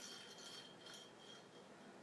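Near silence, with the faint high ring of a small metal engine part clinking just before, fading away within about a second.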